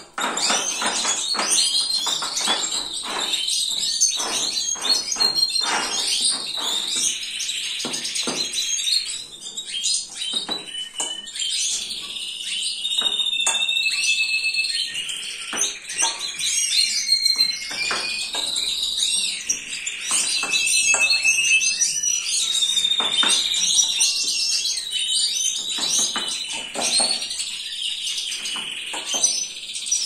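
Goldfinches and canaries chirping and singing. Plastic feeding dishes clatter as they are set down, most densely in the first dozen seconds, and later a spoon scrapes and clinks in a stainless steel bowl.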